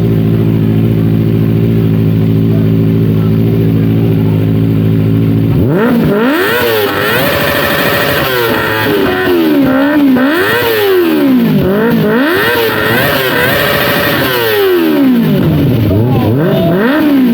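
Kawasaki ZX-25R's 249 cc inline-four idling steadily through a Triton aftermarket exhaust. About six seconds in it is revved repeatedly, the pitch climbing and falling with each blip of the throttle.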